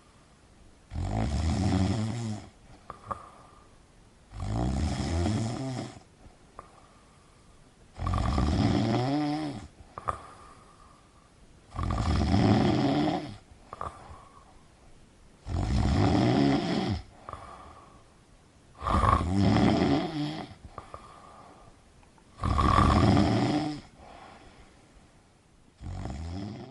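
A person snoring in slow, regular snores, seven loud ones about every three and a half seconds. Each snore lasts one to two seconds, with much quieter breathing in the gaps.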